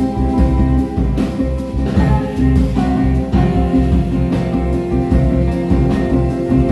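A live band playing a song: electric guitar and drums under long held notes, with a woman singing into a microphone.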